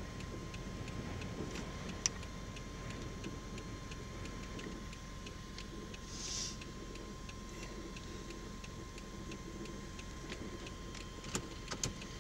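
Steady low rumble of wind, with a faint regular ticking about two to three times a second, a short hiss about six seconds in, and a few sharp clicks near the end.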